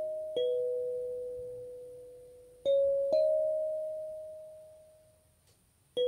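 Kalimba with metal tines on a wooden body, thumb-plucked one note at a time in a slow melody. Four notes, each ringing out and slowly fading; two come close together a little before the middle, and the last dies almost to silence before a fresh note near the end.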